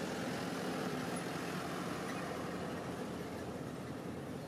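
Steady low rumble of a motor vehicle's engine, swelling slightly about a second in and then easing off.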